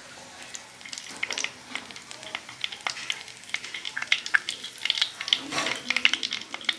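Cumin seeds frying in hot oil in a pan: a steady sizzle with crackling pops that come thicker from about a second in. The pops are the seeds spluttering, the tempering stage before the onions go in.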